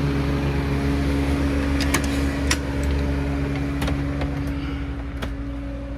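Steady low hum of a diesel running on the motorhome, with a few light clicks and knocks as someone steps up into the coach.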